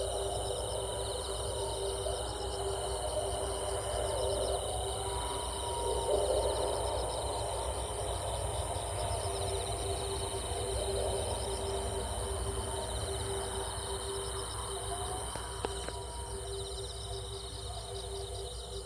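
Night-time chorus of insects trilling in a fast, steady, pulsing rhythm, with a continuous low tone and scattered short animal calls underneath.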